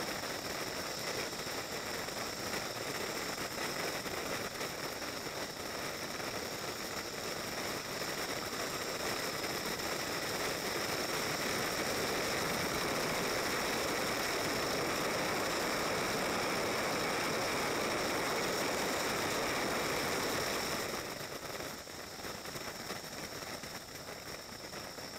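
Motorcycle riding in traffic: a steady rush of wind and road noise over the engine, louder through the middle and dropping suddenly near the end.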